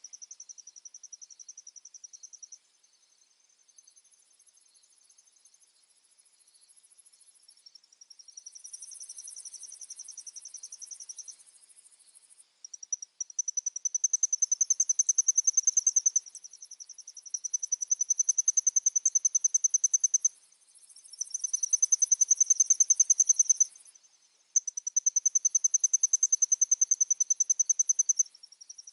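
Crickets trilling: high, fast-pulsed trills in bouts of a few seconds that stop and start again, fainter at first and louder from about halfway in.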